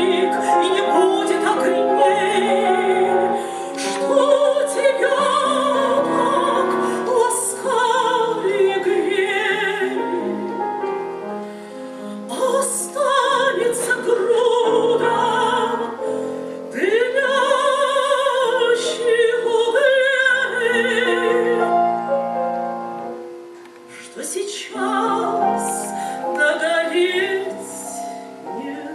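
Woman singing an old Russian romance in a classical, operatic style, her voice wavering with vibrato, accompanied by piano. The music drops briefly a little past two thirds of the way through, then the voice and piano come back.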